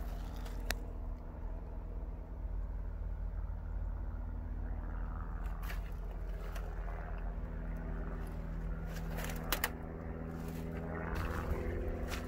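A steady low machine hum, with a few short sharp clicks over it.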